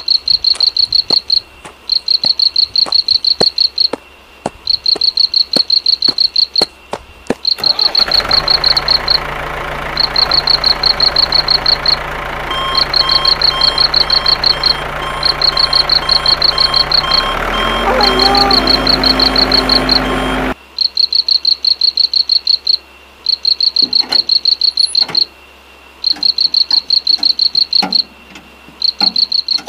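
Crickets chirping in trills about a second long, repeating with short gaps. From about eight seconds in to about twenty, a steady engine-like drone runs beneath them. It steps up in pitch near the end and cuts off suddenly.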